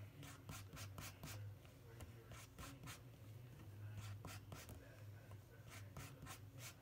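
Oil paint being mixed on a palette: faint scrapes and frequent short clicks from the mixing tool working the paint against the palette surface, with a low steady hum underneath.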